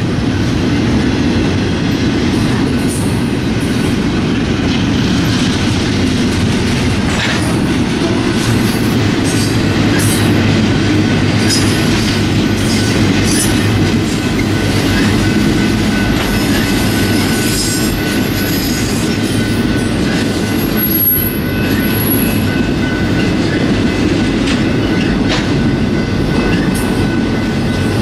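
Double-stack intermodal freight cars rolling past: a steady loud rumble and clatter of steel wheels on rail, with brief thin high wheel squeals in the second half.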